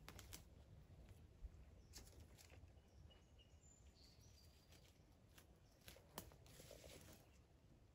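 Near silence in woodland: faint scattered rustles and clicks, with a few brief faint high bird chirps about three to five seconds in.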